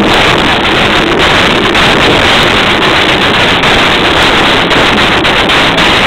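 Taiko drum ensemble drumming on large barrel drums, loud enough that the recording is overloaded into a dense distorted noise with many drum strikes.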